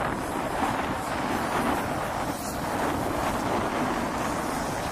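Steady wind buffeting the microphone over breaking surf.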